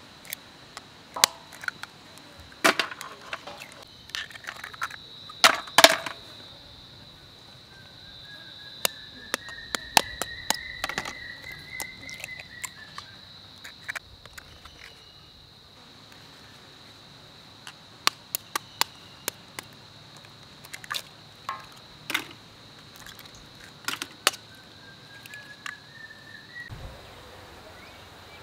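Eggs being cracked one after another on the rim of a large steel bowl: irregular sharp cracks and taps, some clustered closely, over a steady high insect drone.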